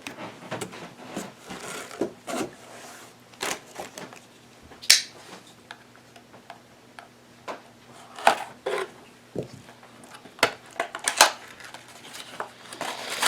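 Camera-bundle accessories and their packaging being unwrapped and handled: irregular rustling, clicks and light knocks, the sharpest about five seconds in.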